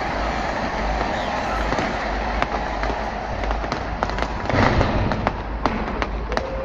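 Fireworks going off: sharp cracks and pops come irregularly over a steady background rumble, starting a couple of seconds in, with the loudest burst a little past the middle.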